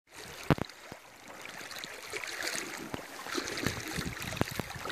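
Shallow river water splashing and lapping, with scattered sharp knocks, the loudest about half a second in.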